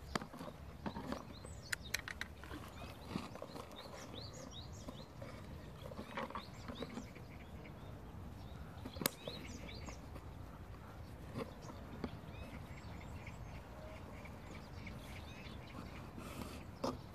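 Birds chirping here and there over a steady low outdoor rumble, with a few sharp clicks or knocks, the loudest one about halfway through.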